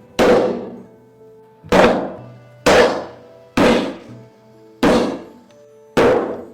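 Heavy thumps, about one a second, six in all, each one dying away briefly, over soft background music.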